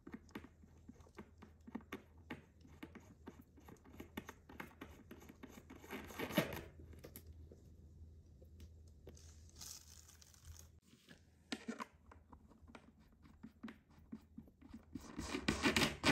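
Faint handling noise while handles are fitted to cabinet doors: many small clicks and taps, with two louder rustles of about a second each, one about six seconds in and one near the end.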